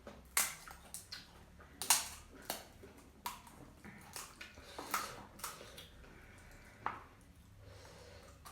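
Close-up eating sounds: crisp snack food being bitten and chewed with wet crunching, in a run of sharp crackles roughly once or twice a second.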